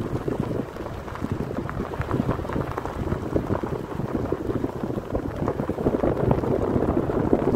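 Car tyres rolling over a loose gravel road: a dense, steady crackle of stones popping and crunching under the tyres.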